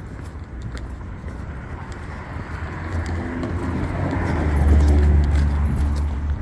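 A motor vehicle passing close by on the street: a low engine rumble and tyre noise that build to a peak about five seconds in, then begin to fade.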